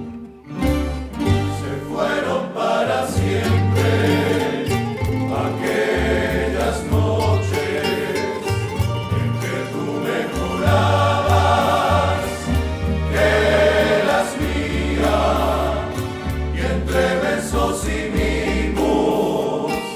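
Colombian serenata-style rondalla music: several voices singing together over a plucked-string ensemble and bass, beginning about two seconds in after a short plucked-string introduction.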